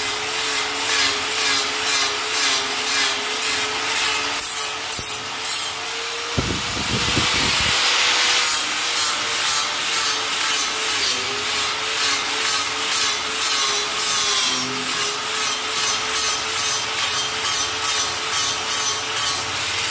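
Electric angle grinder with an abrasive disc grinding a steel stair railing: a steady motor whine under a rasping grind that swells and fades about twice a second.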